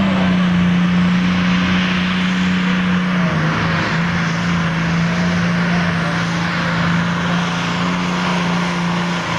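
Pulling tractor's diesel engine running flat out under load as it drags the weight-transfer sled, a loud steady engine note that dips briefly about three and a half seconds in and steps down slightly near the end.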